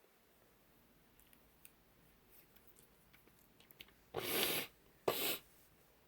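A woman sniffing hard through her nose twice in quick succession, with a congested nose. Before that come a few faint small mouth or nose clicks.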